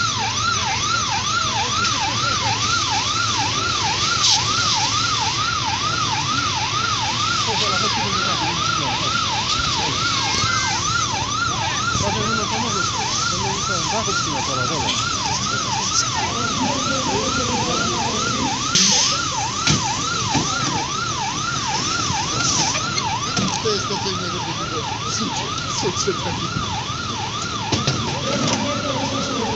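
Emergency vehicle siren in a fast up-and-down sweep, rising and falling about twice a second, with a few sharp knocks and some clatter over it.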